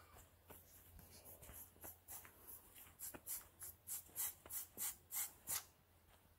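Footsteps swishing through grass and weeds, faint at first and growing louder over the second half at about three steps a second, then stopping near the end.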